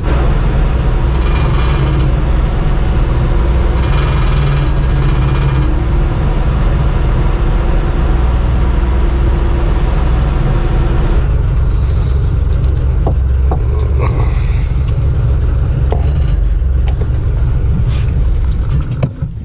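Fishing boat's engine running with a steady low hum, under wind and water hiss that thins out about eleven seconds in; the overall sound drops in level just before the end.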